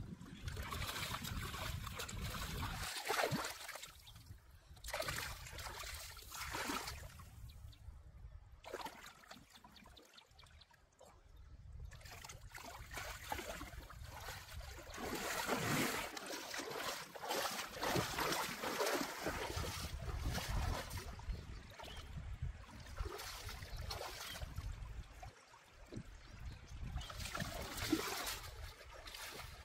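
River water splashing and sloshing as a person lies in it and wades through the shallows, over the steady run of the flowing stream; the splashing dies down for a few seconds in the middle, then picks up again.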